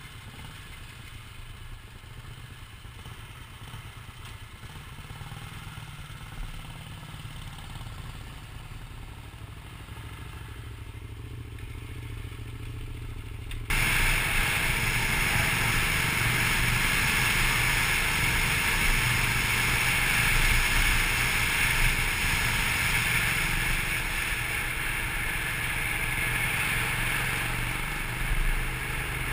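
Motorcycle engines idling with a steady low rumble, then, about halfway through, a sudden switch to loud wind rush over the microphone and engine noise from a motorcycle on the move.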